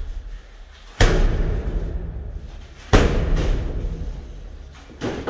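Three heavy booming thuds about two seconds apart, each trailing off slowly with a deep ring.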